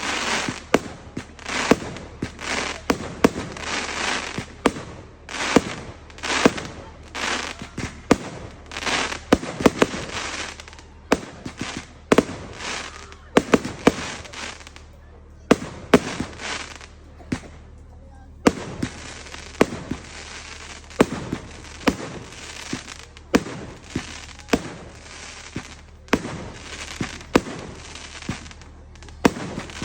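Fireworks going off in quick succession: sharp bangs, several close together at times, each followed by a second or so of hissing crackle, with a brief lull about two-thirds of the way through.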